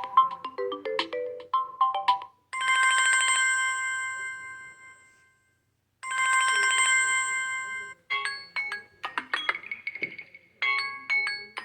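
Samsung Galaxy M30s ringtones previewed one after another through the phone's speaker. A quick melodic pattern stops about two seconds in. A bell-like chime then rings and fades, a similar chime follows after a second's pause and cuts off abruptly, and a new melody of bright notes begins about eight seconds in.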